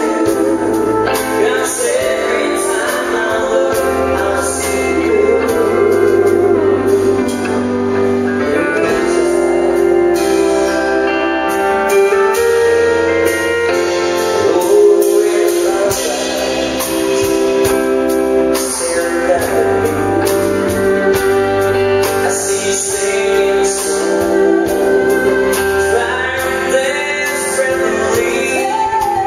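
Live country band playing a song, with a woman and a man singing over electric guitar, drums and keyboard.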